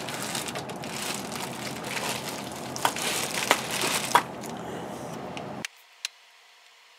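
Bubble wrap crinkling and crackling as it is handled, with a few sharp clicks in the middle. About five and a half seconds in it cuts off abruptly, leaving only a faint hiss and one small click.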